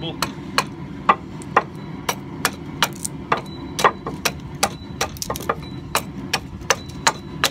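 Antique Plumb broad hatchet hewing an upright ash handle blank: quick, even chops of the steel blade into the wood, a little over two a second.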